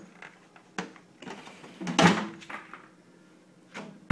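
Handling noise as the phone is moved around: a few light clicks and knocks, with a louder scraping knock about two seconds in.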